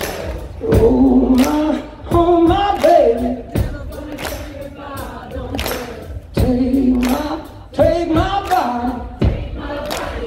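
Live rock band: sung vocal phrases over sharp drum hits.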